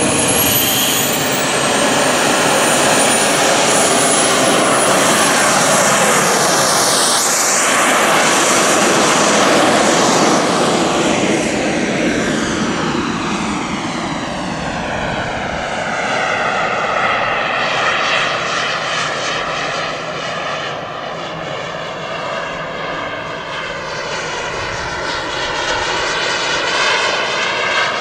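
Jet engine of a radio-controlled BAE Hawk model jet. Its high whine climbs steeply in the first second or two as the throttle opens on the runway, then turns to a steady rushing jet sound as the model takes off and flies passes. The sound eases a little and wavers as the jet sweeps by in the second half.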